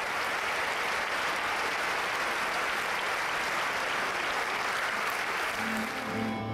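A large audience applauding steadily. Near the end an orchestra starts playing under the last of the applause.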